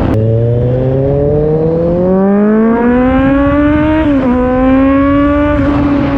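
Kawasaki Z900's inline-four engine with a Racefit aftermarket exhaust accelerating hard, its note rising steadily, dropping briefly at a gear change about four seconds in, then climbing again in the next gear.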